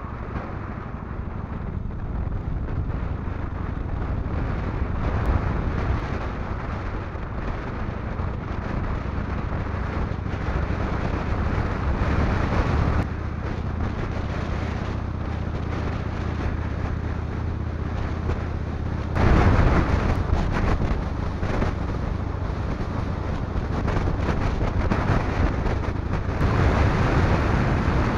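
Kawasaki VN1500 V-twin engine running steadily while the motorcycle cruises along, mixed with wind rushing over the microphone. The sound steps up louder about two-thirds of the way through.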